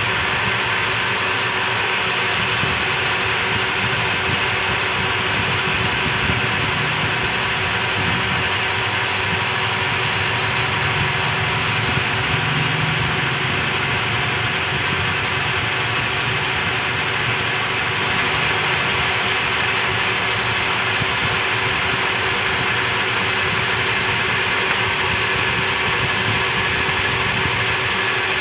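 Old metal lathe running steadily, turning a long steel shaft as the cutting tool takes a cut along it. It makes a constant drone with a few held tones over a hiss, unchanging throughout.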